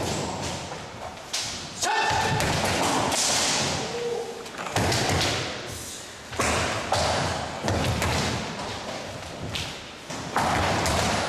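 Irregular heavy thuds of karate partner practice: bare feet stamping and landing on a wooden dojo floor, about six hits a second or two apart, each echoing briefly in the hall.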